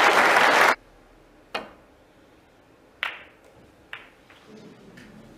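Audience applause that stops abruptly under a second in, then three sharp clicks of snooker balls: the cue striking the cue ball and balls colliding as the pack of reds is split.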